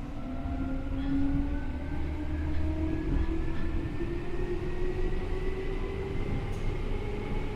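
Seibu N2000 series electric train running, its field-chopper-controlled DC traction motors and gears whining in several tones that rise slowly in pitch as the train picks up speed, over steady rumbling running noise.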